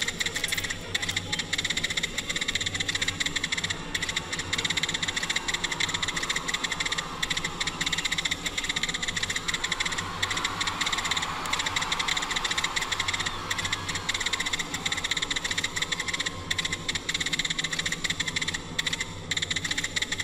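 Dense, very rapid clicking and buzzing noise over a steady low hum, with no clear tune or singing, and a swell in the middle.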